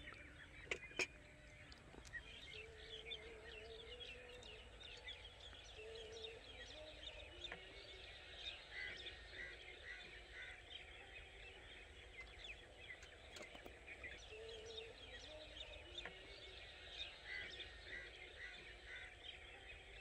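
Faint chirping of many small birds, with lower, drawn-out wavering calls now and then.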